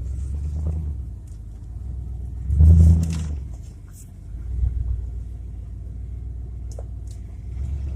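1993 Ford F-150 pickup on the move: a low, steady rumble of engine and road noise that swells briefly about two and a half seconds in and again, more softly, near five seconds.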